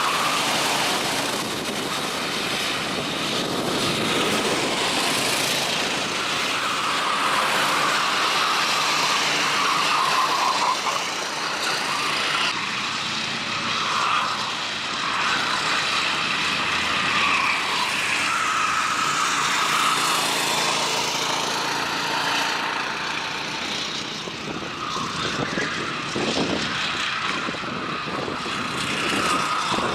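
Racing kart engines running at speed, their pitch rising and falling as the karts go by and change throttle.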